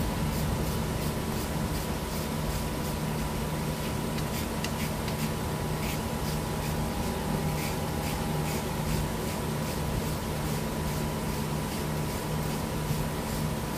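Steady machine hum with a fixed low drone and a faint steady tone above it, with faint light clicks of a hand tool on metal now and then.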